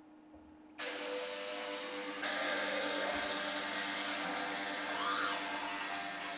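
Skymen ultrasonic cleaner switched on about a second in: a sudden steady buzzing hiss of the transducers cavitating the cleaning bath, which steps up in level about a second later and then holds.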